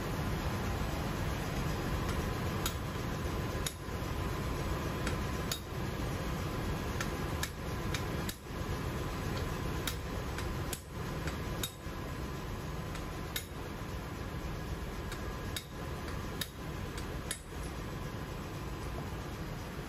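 Hand hammer striking a steel drift to knock apart a MAN B&W slide-type fuel valve held in a bench vise: sharp metallic taps, irregularly about once a second, starting about three seconds in, over steady background noise.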